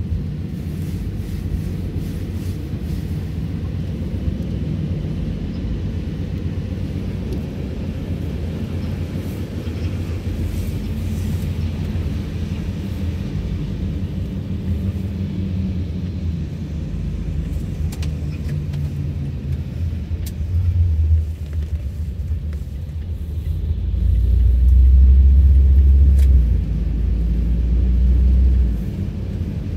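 Road noise inside a moving vehicle on a wet road: a steady low rumble of engine and tyres that swells louder for a few seconds near the end.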